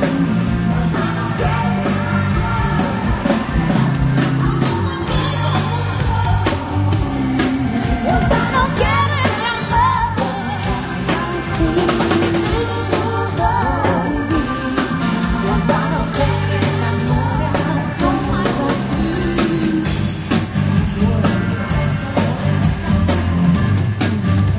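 Live pop-rock band playing a song through a stage PA: drum kit keeping a steady beat and electric guitar, with women singing the lead into microphones.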